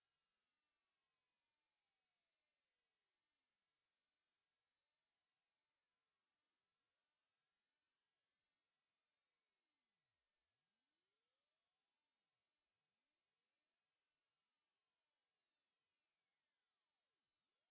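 Hearing-test pure sine tone sweeping slowly and steadily upward from a high whistle to the very top of the audible range, then cutting off suddenly. The climb is the frequency sweep that finds the highest pitch a listener can still hear.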